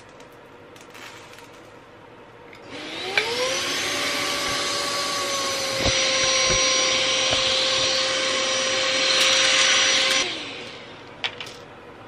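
Philips 3000 Series cordless stick vacuum (XC3131/01) switching on with a rising whine about three seconds in, running steadily while picking up spilled mung beans, with a couple of knocks midway. It winds down with a falling whine about ten seconds in.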